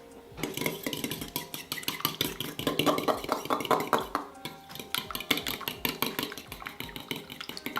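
Two eggs being whisked in a bowl, the utensil clicking rapidly against the bowl several times a second, starting about half a second in.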